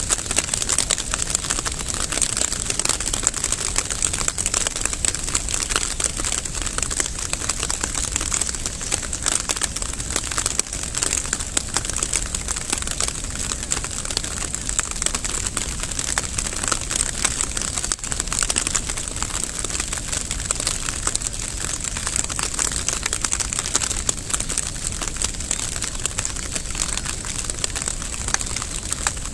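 Steady rain: a dense, even patter of many small drops falling close by, with no let-up.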